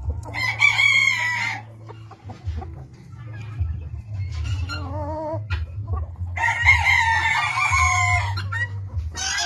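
Rooster crowing twice, two long high-pitched crows about five seconds apart, with a shorter wavering chicken call between them over a steady low hum.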